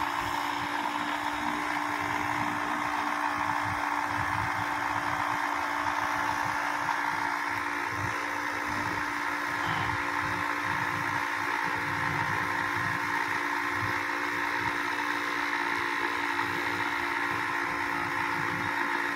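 Portable 12 V tyre inflator's small piston compressor running with a steady, even hum, pumping air into a flat car tubeless tyre as the pressure slowly climbs. The car's engine idles underneath.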